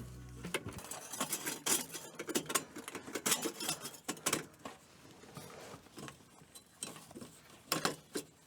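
Irregular light metallic clinks, taps and rattles as a diesel heater's exhaust pipe and its fittings are handled and pushed together. The clinks are densest in the first half and come again near the end.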